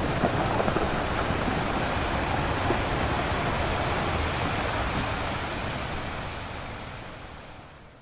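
Steady rushing, static-like noise, with no tune or voice in it, fading out over the last few seconds.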